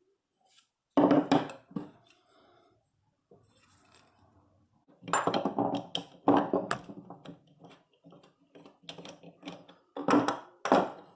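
Loose screws, nuts and metal vise parts clinking and clattering as they are handled and set down, with wooden knocks from the vise jaw, in several bursts: about a second in, around five to seven seconds in, and near the end.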